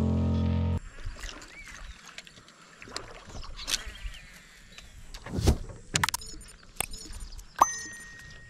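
Background piano music cuts off under a second in. Then come quiet surroundings on a boat, with scattered faint knocks and clicks; the sharpest come around the middle and near the end.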